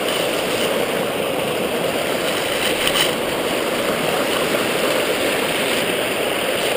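Mountain stream rushing over rocks in a small cascade, heard close up as a steady wash of water.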